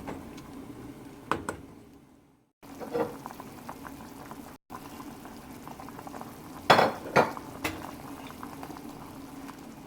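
A pot of broth bubbling at a boil, with a few sharp clinks of a utensil against the pot, the loudest about seven seconds in. The sound cuts out briefly twice.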